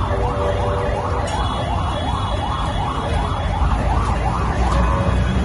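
Emergency vehicle siren in a fast yelp: a rising sweep repeated about two and a half times a second. It stops about four and a half seconds in, over a low traffic rumble.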